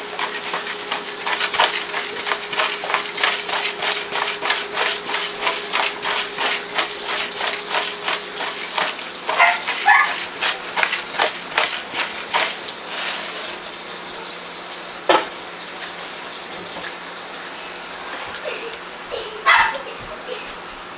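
Fast, even knocking, about three strikes a second, that stops about thirteen seconds in. A dog barks about halfway through and again near the end.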